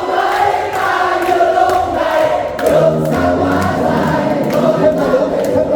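Many voices singing a song together over music, with bass notes coming in about halfway through.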